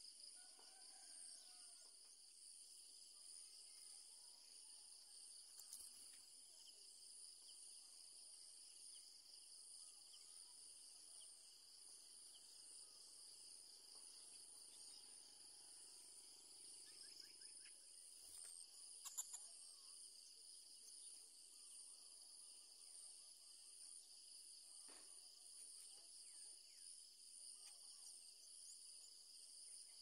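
Faint, steady, high-pitched insect chorus, with a soft click about two-thirds of the way through.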